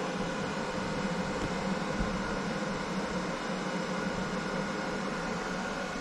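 Steady whirring hum of the EcoFlow EF DELTA portable power station's cooling fans while it charges from a 12V socket at about 88 W.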